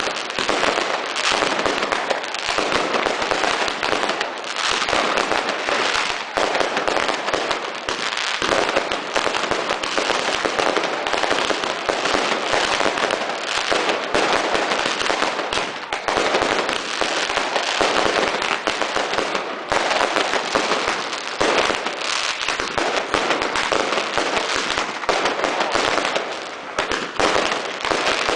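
Fireworks going off in a dense, continuous barrage of bangs and crackling, with no break.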